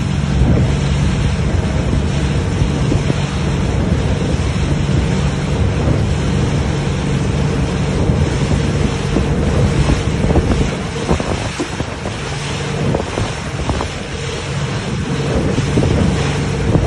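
A rigid inflatable boat under way at speed: its engine gives a steady hum under heavy wind buffeting on the microphone and the rush of churning water in the wake.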